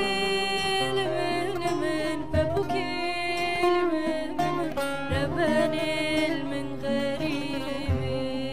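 Kurdish folk song: a woman sings a slow, melismatic melody with vibrato over acoustic guitar and long-necked saz, with a low beat about every three seconds.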